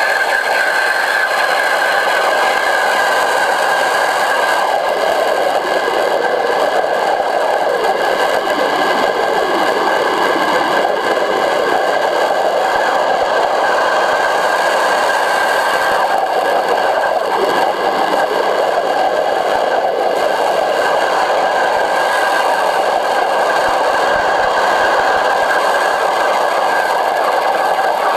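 Pressure-washer nozzles jetting water underwater, recorded from beneath the surface: a loud, steady rushing hiss with a high whine held throughout.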